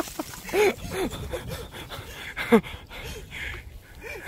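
A man's short gasping exclamations, about half a second in and again near the middle, over irregular scuffing footsteps on a gritty concrete road.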